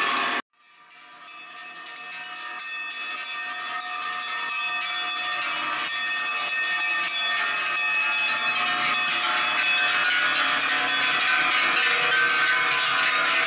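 Many large cowbells clanging together, worn by a herd of cows walking along a road. The sound drops out for a moment near the start, then fades back in and grows steadily louder.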